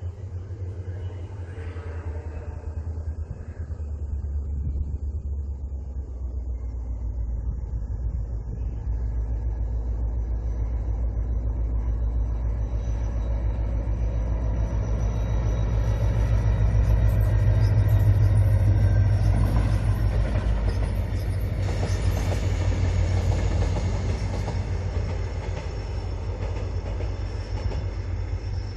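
Diesel-hauled Mugunghwa-ho passenger train passing: a low locomotive engine rumble that swells to its loudest about two-thirds of the way through, with the rattle of wheels on the rails as the cars go by, then easing off.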